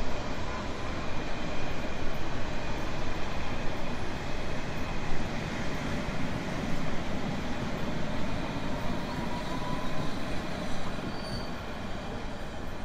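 Train running on rails: a steady rumble and rush of the carriage, with faint thin wheel squeals drifting in and out.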